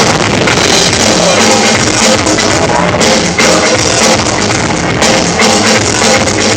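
Loud rock music with drums and guitar played over a sound system, heavily distorted.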